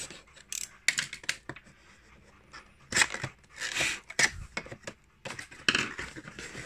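Snap-off box cutter slicing the tape and cardboard of a toy box, then the cardboard flaps scraping and rustling as the box is opened: a series of short scratchy cuts and clicks.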